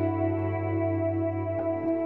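Ambient instrumental background music: held chords over a steady low bass note, shifting to a new chord near the end.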